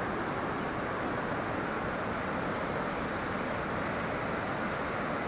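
A river rushing steadily: an even, continuous rush of water.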